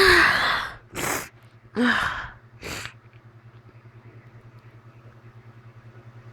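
A person sneezing loudly at the start, then a few short, sharp breaths and a short vocal gasp over the next three seconds: allergic sneezing set off by cats. A low steady hum runs underneath.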